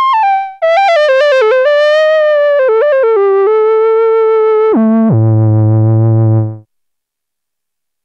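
Sequential Prophet 10 analog synthesizer playing a single-note lead line, its pitch gliding from note to note. The line ends with a drop to a low note that slides further down and holds, then cuts off about two-thirds of the way in, followed by silence.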